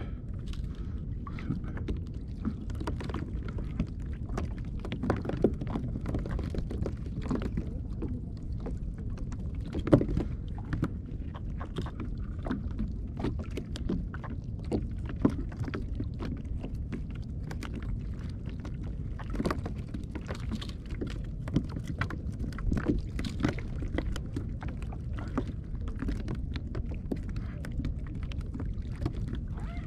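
Steady low rumble of wind and sea on the microphone, with frequent small knocks and taps as small fish are unhooked from a multi-hook line and dropped onto the plastic deck of a sit-on-top kayak.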